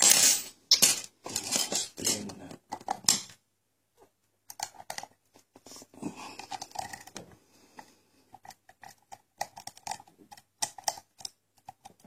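Metal pick and tension tool working in a Lockwood pin-tumbler lock during single-pin picking: dense scratchy scraping and clicking for the first three seconds or so, then scattered light, irregular clicks as the pick lifts pins.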